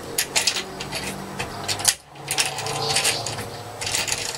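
Small metal parts clicking and clinking as washers and a bolt are screwed onto a manual grinder, in a quick irregular run of sharp clicks.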